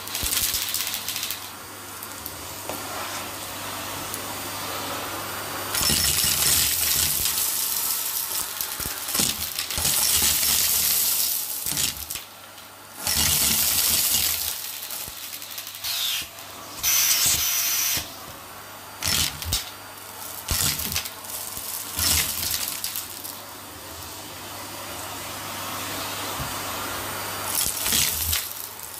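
Vacuum cleaner hose sucking up a pile of glitter, beads, sequins and grit from carpet, the debris rattling and crunching up the hose in a series of loud bursts between stretches of steadier suction.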